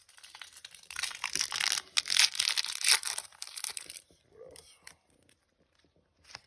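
Foil Pokémon TCG booster pack wrapper crinkling and being torn open, a dense crackle lasting about three seconds, then a few faint rustles.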